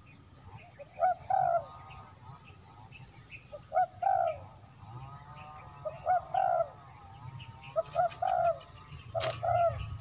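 Dove cooing: a short note followed by a longer coo, repeated five times about two seconds apart, with small birds chirping faintly behind. There is a single sharp click about nine seconds in.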